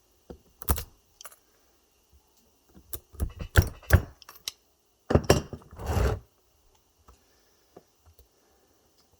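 Sharp metallic clicks and rattles of pliers biting and pulling at an ebike battery pack, with small metal pieces clinking. They come in bursts: a short one under a second in, a longer cluster around three to four and a half seconds, and the loudest around five to six seconds, then only a few faint ticks.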